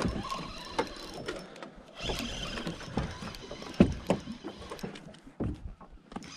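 Spinning reel being cranked to bring in a hooked fish, its gears and rotor whirring unevenly. Several sharp knocks come through, the loudest about four seconds in.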